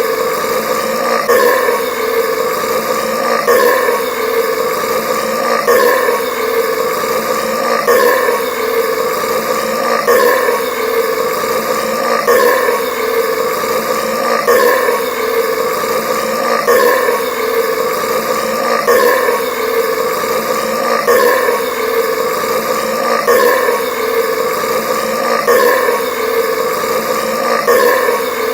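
Loud, unbroken belching, the burps of a man who has chugged Sprite Cranberry soda. The same burp is looped, so it repeats about every two seconds with no gap.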